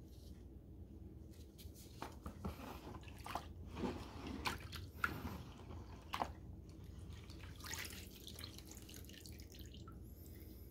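Liquid sealer splashing and sloshing in a plastic tub as a black cast piece is pushed under by gloved hands, then dripping back into the tub as the piece is lifted out. A run of sharp splashes and knocks in the middle, with a hissing spill of drips about eight seconds in.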